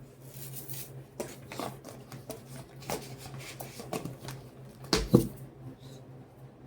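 Handling noises as the old drywall hammer is worked on: scattered light clicks and knocks, with one louder knock about five seconds in, over a steady low hum.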